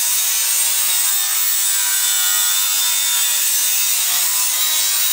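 Hand-held power tool cutting through sheet steel: a steady, loud, hissing cut with thin high whining tones, the blank for a new body panel being cut out.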